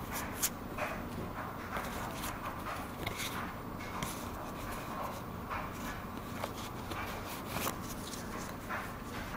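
Pokémon trading cards handled and slid against one another: soft, scattered flicks and rustles of card stock.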